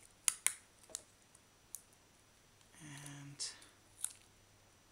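A few sharp clicks and ticks from fingers handling a roll of clear adhesive tape and a shoelace, the two loudest about half a second in. A short hummed voice sound about three seconds in.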